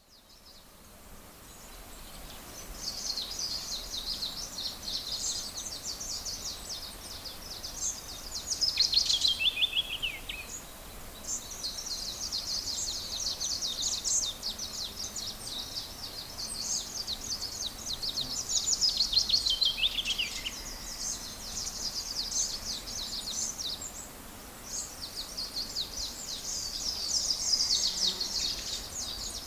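Songbirds singing in long runs of rapid, high twittering. Three times the run ends in a falling trill, roughly every ten seconds. The song fades in at the start.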